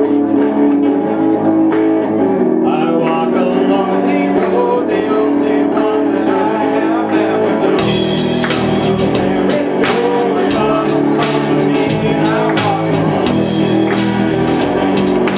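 Live band playing, with electric guitars and a singer. The music gets fuller and brighter about eight seconds in.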